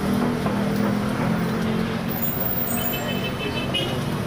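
A road vehicle's engine running steadily with a low hum, mixed with the dense crackle of distant fireworks.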